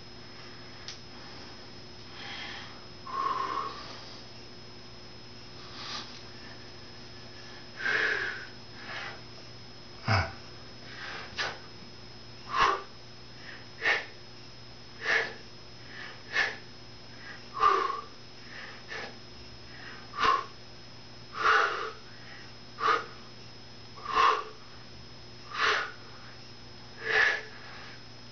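A man's short, forceful breaths while doing push-ups on a push-up bar, one with each rep at about one every second and a quarter, after a few slower, heavier breaths as he settles into position. A dull thump comes about ten seconds in, as the regular breathing starts.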